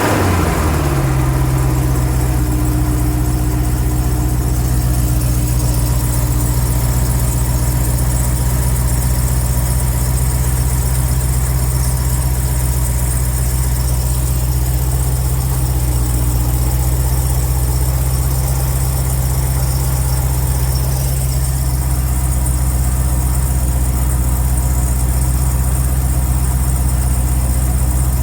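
Jeep Grand Cherokee Trackhawk's supercharged 6.2-litre V8 fast-idling just after a cold start, settling from the start-up flare in the first second. A squeaky, tinkling noise runs over the idle; it appears only on a cold start and fades as the engine warms, and its cause is not known.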